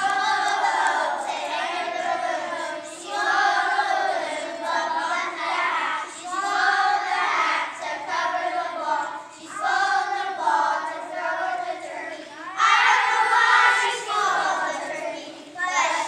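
A group of children singing together in unison, in short phrases of a few seconds with brief pauses for breath between them.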